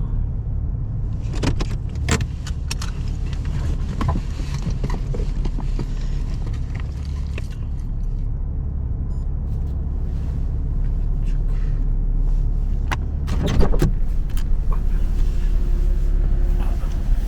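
A car running on the road: a steady low rumble with scattered light clicks and rattles, and a short burst of rattling about thirteen seconds in.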